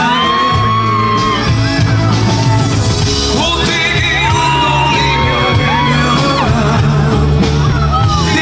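Live rock band playing through a concert PA while a male lead singer belts long held notes, some with vibrato.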